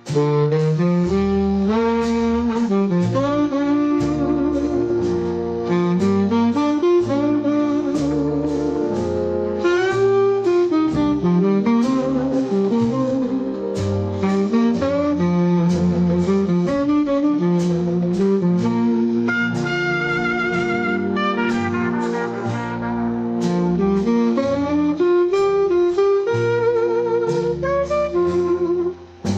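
Jazz instrumental: a reed horn plays the melody over a stepping bass line, with guitar chords behind. The music drops away briefly near the end, then comes back in.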